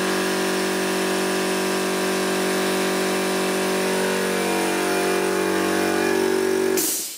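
A machine's motor running loudly at a steady pitch, then cutting off suddenly near the end.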